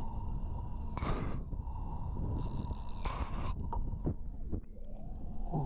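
Steady low rumble of a boat's motor and wind on the deck, with a faint steady whine and a few short scuffs about one, three and four seconds in.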